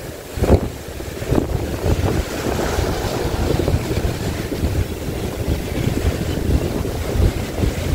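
Wind rumbling and buffeting on the microphone aboard a small fishing boat at sea, with waves washing against the hull. A couple of short knocks come in the first two seconds.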